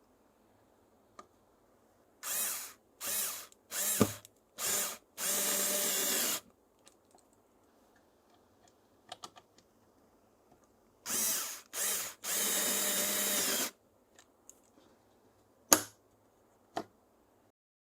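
Power drill-driver driving screws into a cabinet hinge: a few short trigger pulls, then a steady run of about a second, the pattern coming twice. Two sharp clicks follow near the end.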